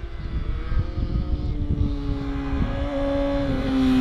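Honda CBR600RR's inline-four, fitted with an Arrow Indy race full exhaust system, approaching under power. Its engine note grows steadily louder, holding a fairly even pitch that steps a few times.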